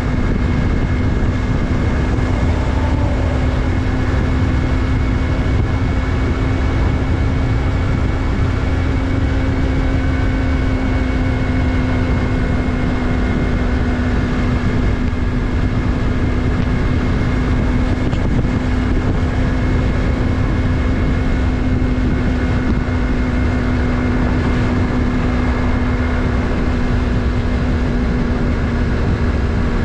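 Yamaha MT-03's 321 cc parallel-twin engine running at a steady speed while riding, its drone holding nearly the same pitch throughout over a steady low rush.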